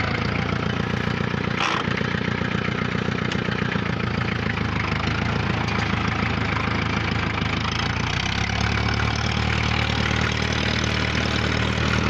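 International 414 tractor engine running steadily under load while it pulls a two-furrow plough through the soil, heard from the driver's seat. The engine's low note changes slightly about eight seconds in.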